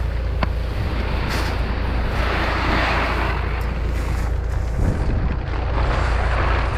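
Wind buffeting the microphone over a steady low rumble, with rough swells of noise about two seconds in and again near the end.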